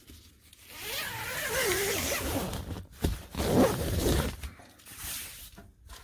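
Door zipper of a Napier Sportz Camo truck tent being pulled open in two long zips, with a shorter one after them.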